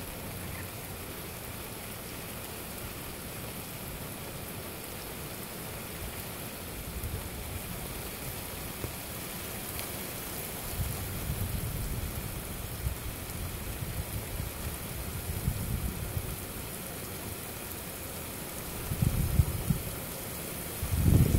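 Steady rain falling, a continuous hiss, with gusts of wind buffeting the microphone now and then, strongest near the end.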